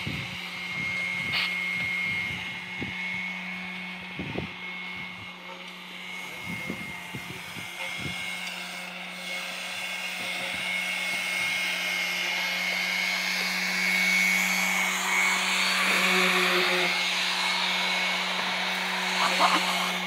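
A small electric motor runs steadily with a hum and a rushing-air hiss, getting louder about two-thirds of the way through. Light knocks and clatter from tools being handled come in the first few seconds.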